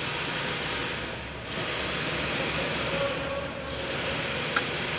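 Steady hiss and rumble of background noise, with one sharp click about four and a half seconds in.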